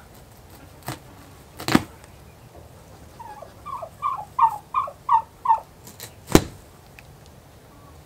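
Domestic fowl calling a run of about eight short, slightly falling notes, close to three a second. Sharp snaps or knocks sound once before the calls and once just after them.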